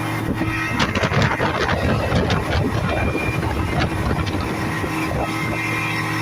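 Speedboat engine running with a steady hum, with a stretch of rough splashing and slapping of water over the first half.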